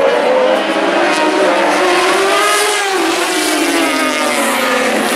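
1000cc four-stroke Superbike racing motorcycles at high revs, several engine notes overlapping. They climb in pitch to a peak about halfway through, then drop away.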